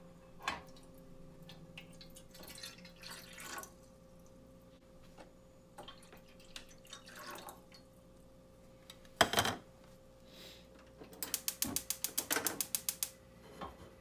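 Cooking and handling sounds: scattered clicks and knocks, a single loud knock about nine seconds in, then a quick even run of about ten clicks a second lasting two seconds.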